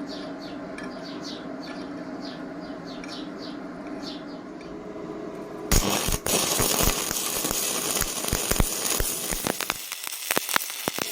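A steady hum with faint repeated ticks, then, just under six seconds in, a stick-welding arc is struck and keeps burning with a loud, dense crackle and sputter of sharp pops.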